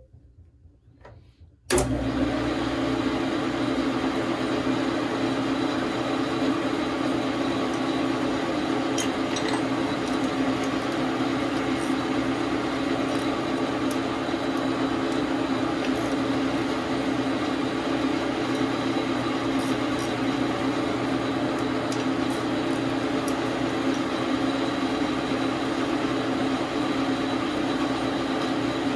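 Dar Sin 12 x 37 manual lathe switched on a couple of seconds in, then its motor and gearing run steadily.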